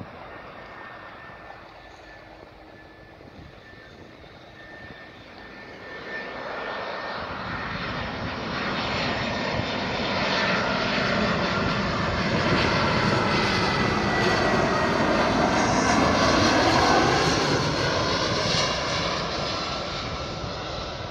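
Airbus A320-family jet airliner on landing approach with gear down, its engine noise swelling from about six seconds in and loudest as it passes, the pitch swooping as it goes by, then easing off near the end.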